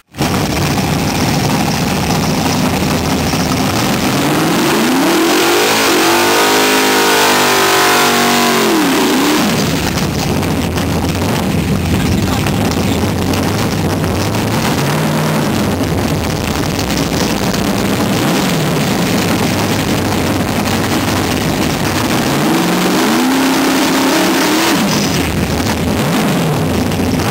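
A first-generation Chevrolet Camaro drag car's engine runs loudly at a lumpy idle and is revved up and back down twice. The second rev-up near the end goes with a burnout, the rear tyres spinning and smoking.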